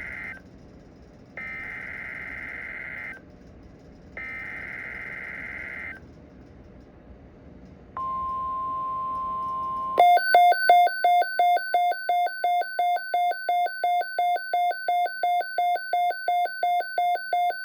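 NOAA Weather Radio EAS alert: the SAME header's screechy digital data bursts, sent three times, then the steady 1050 Hz warning-alarm tone for about two seconds. About ten seconds in, the radio breaks into a loud pulsed alarm beeping about four times a second.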